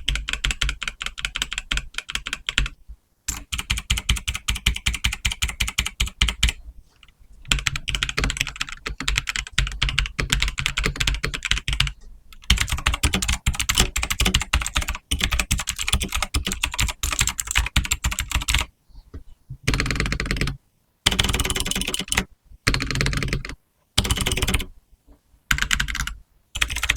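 Fast typing on mechanical keyboards, red-switch and blue-switch boards tested for noise: long runs of rapid key clicks, then from about two-thirds of the way through, short bursts of typing separated by brief silences.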